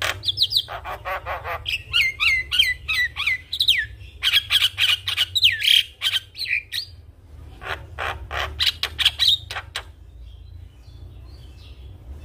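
Javan myna singing a loud, full song: a rapid run of harsh clicking notes mixed with whistled downslurred calls, thinning to a few faint notes about ten seconds in.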